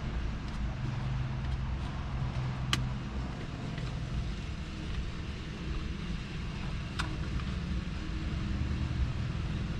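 A steady low hum with two sharp clicks, about three and seven seconds in, of a screwdriver working on the dash's plastic trim.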